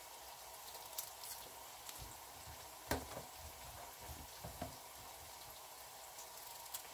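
Kitchen knife cutting florets off a raw cauliflower head: a few light snaps and clicks, the sharpest about three seconds in, over a faint steady hiss.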